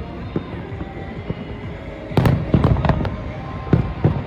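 Fireworks display going off: a few light pops, then a quick run of loud bangs with echoing tails about two seconds in, and one more bang near the end.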